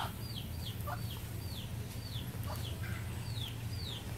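Chick peeping: short, high, falling notes repeated about three times a second, with an occasional lower cluck, over a steady low hum.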